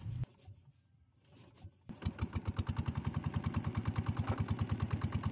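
Boat engine catching about two seconds in and then running with an even, rapid beat of about eleven pulses a second.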